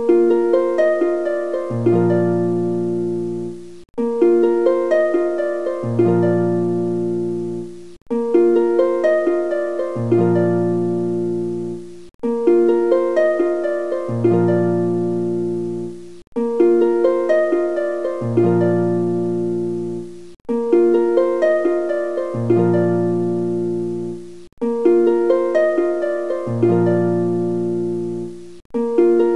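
Background music: a short plucked-string tune, harp-like, looping about every four seconds with a brief gap between each repeat.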